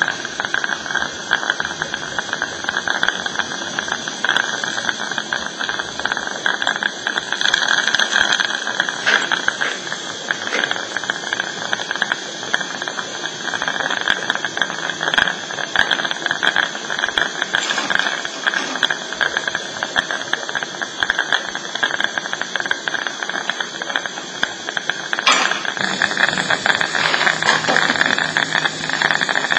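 Dental suction running with a steady hiss and high whine, with small irregular rattles and gurgles throughout.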